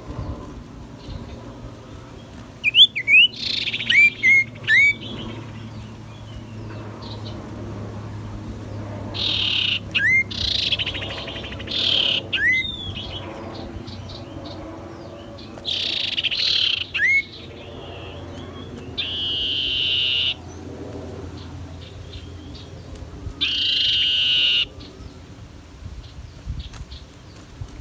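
Male common iora singing in breeding condition: bouts of short whistled slurred notes and longer buzzy trills, spaced a few seconds apart.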